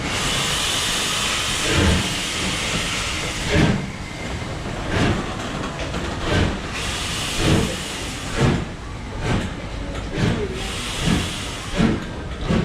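Steam locomotive pulling away: a steady hiss of steam, then exhaust chuffs that start about two seconds in and come quicker and quicker as it picks up speed.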